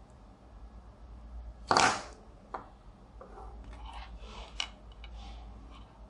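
Small plastic parts handled on a wooden table: one loud clatter about two seconds in, a sharp click just after, then light clicks and rustles as a battery box and a red two-pin wire plug are moved about.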